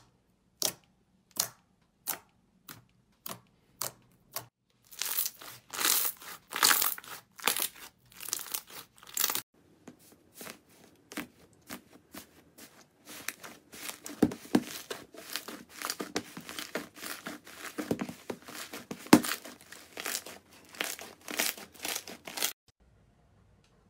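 Hands working slime with no music. First, clear slime pressed flat pops with single sharp clicks, about one every two-thirds of a second. From about five seconds in, these give way to dense, uneven crackling and crinkling as slime is squeezed and pulled, which stops suddenly near the end.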